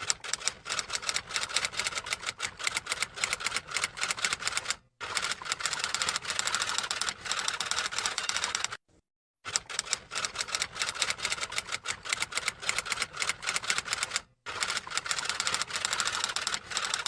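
Rapid typewriter key clicks in runs of a few seconds, broken by three short pauses.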